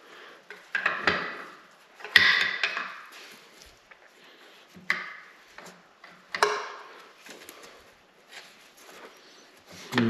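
Metal engine parts knocking and clinking as gears, shafts and a bearing are worked out of a Honda V45 motorcycle engine's crankcase: four sharper knocks with a short ring, about one, two, five and six and a half seconds in, with lighter clicks between.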